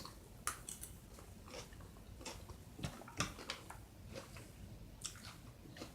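Faint chewing, with soft irregular mouth clicks and smacks spread through the pause.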